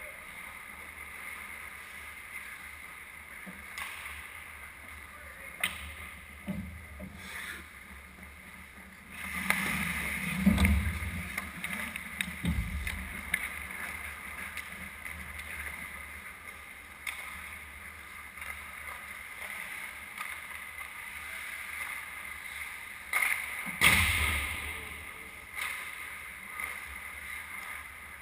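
Ice hockey play in an arena: skate blades scraping and carving the ice, with scattered sharp clacks of sticks and puck. There is a busier stretch of scraping and knocks about a third of the way in, and one loud hit, like a puck striking the boards or the goalie's pads, about three-quarters of the way through.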